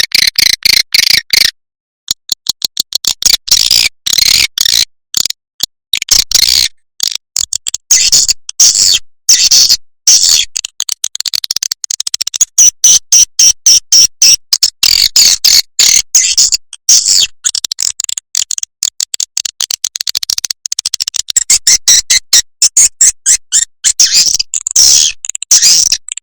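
Swiftlet lure call recording: a dense, rapid stream of high, buzzy swiftlet chirps and twitters in short clipped pulses with brief gaps, the kind of roosting and calling sound played to draw swiftlets into a bird house.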